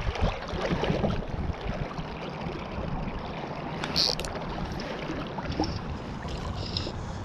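River water flowing steadily over riffles, with a brief high-pitched sound about four seconds in.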